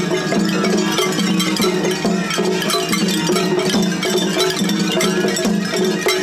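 Shagiri festival music played by children: small brass hand cymbals clanging in a fast, dense rhythm over a steady low beat.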